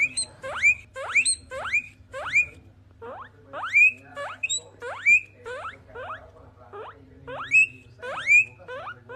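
Guinea pigs wheeking: repeated loud rising whistles, about two a second, in runs of several calls broken by short pauses.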